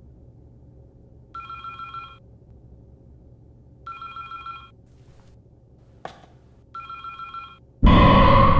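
Electronic desk telephone ringing three times, each ring under a second long with about two seconds between rings. Near the end a sudden loud burst of noise cuts in, the loudest sound here.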